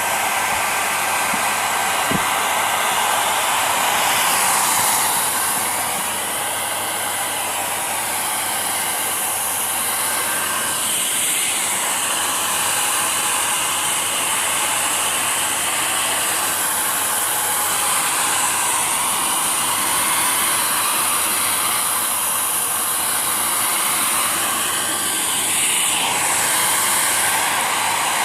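Hair dryer running, a steady rush of blown air whose tone wavers slightly now and then.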